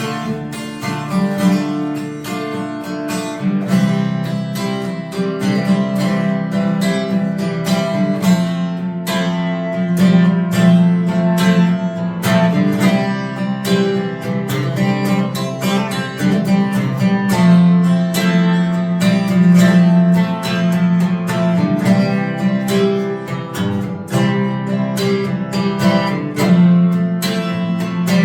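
Acoustic guitar strummed in a steady rhythm: an instrumental passage of a song, without singing.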